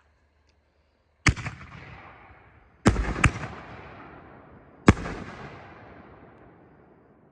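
Aerial firework shells bursting: four sharp bangs, two of them close together in the middle, each trailing off in a long fading echo.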